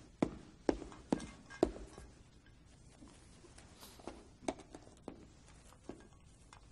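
Four footsteps on a wooden floor, about half a second apart, then a few fainter clicks and taps as biscuits are taken from a bowl.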